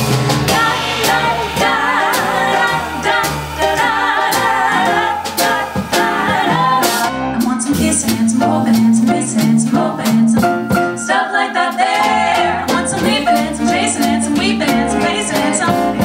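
Female vocal trio singing together, backed by a small jazz band with upright bass and drums.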